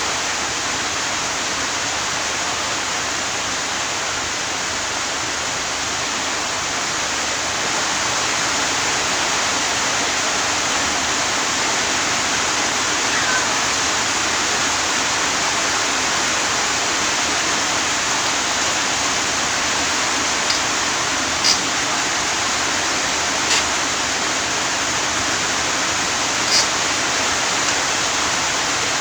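A steady, even rushing hiss with a few faint, brief clicks in the second half.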